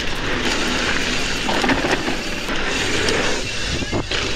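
Wind rushing and rumbling over a GoPro action camera's microphone, mixed with rolling trail noise from a mountain bike being ridden along a trail.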